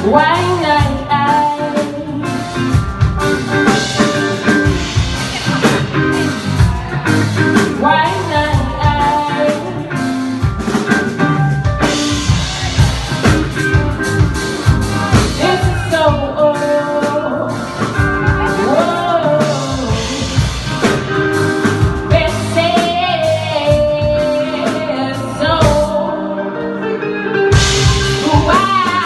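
A band playing a song live: a sung vocal line over guitar and a drum kit. The cymbals drop out briefly near the end, then the full band comes back in.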